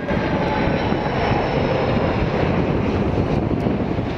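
Boeing 747-400's four turbofan engines passing low overhead at approach power on final approach to land: a loud, steady rush of jet noise with a faint high whine drifting slightly down in pitch.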